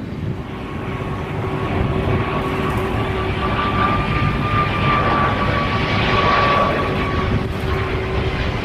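Boeing 777-200ER jet engines on approach: a steady jet roar that builds over the first few seconds, with a high engine whine held over it that fades out near the end.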